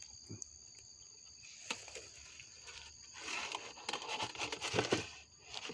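Insects keep up a steady, thin, high trilling. About three seconds in come rustling and a few light knocks.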